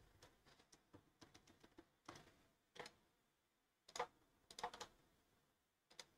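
Faint clicks of a computer keyboard and mouse: a quick run of key presses in the first two seconds, then a few separate clicks about a second apart.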